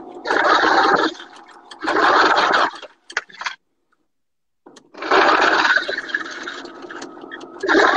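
Domestic sewing machine stitching in short bursts of about a second each, the motor and needle running then stopping. Partway through, the sound cuts out completely for about a second.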